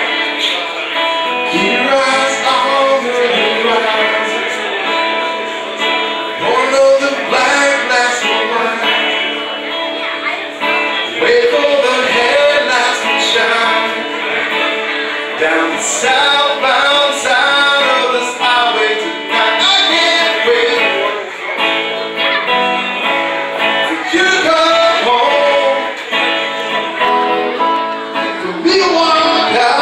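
A man singing live to his own guitar, amplified through a microphone and PA.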